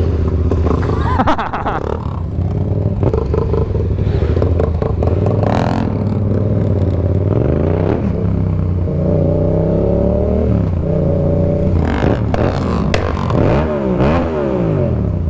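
Yamaha MT-07's parallel-twin engine through an aftermarket M4 exhaust, ridden hard: the engine note climbs and drops with the throttle, with a run of quick revs up and down near the end. Other motorcycles run alongside.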